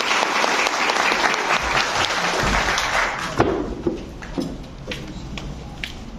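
Audience applauding: full applause for about three seconds, then thinning out to scattered claps.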